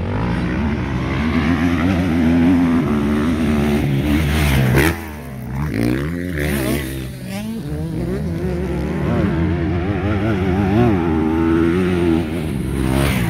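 Motocross bike engines revving up and down as they ride the dirt track, the pitch rising and falling repeatedly through throttle and gear changes. The sound drops briefly about five seconds in.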